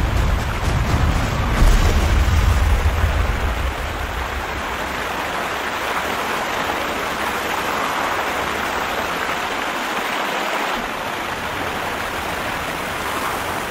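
Rushing river rapids: a steady hiss of fast-flowing water, with a deeper low rumble beneath it for the first few seconds.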